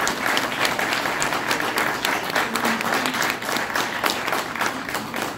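Audience applauding, with sharp single claps from someone close by standing out over the crowd's clapping.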